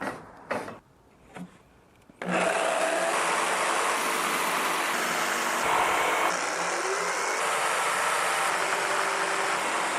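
A couple of light knocks, then an electric power tool starts abruptly about two seconds in and runs steadily and loudly.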